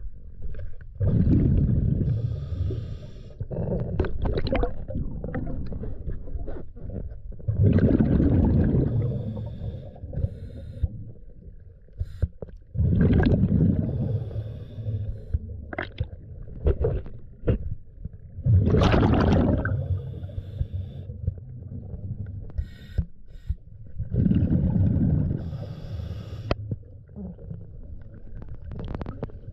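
Scuba diver breathing through a regulator underwater: five exhalations, each a loud rush of bubbling about every five to six seconds, with quieter sounds between.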